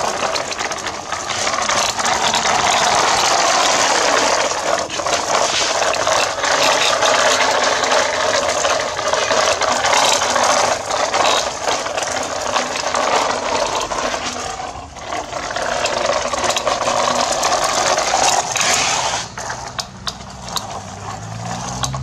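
Plastic toy dump truck wheels rolling and rattling over sand and grit as the truck is towed along: a steady, dense crunching rattle full of small clicks that dies down near the end.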